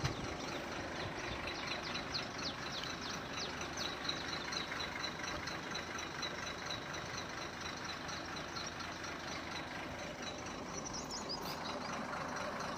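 A parked truck's diesel engine idling steadily, with many short, high, falling chirps over it in the first half and again near the end.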